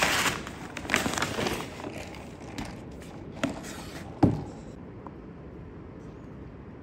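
Clattering handling noise with a few sharp knocks, the loudest a heavy thump about four seconds in, followed by a steady low rumble.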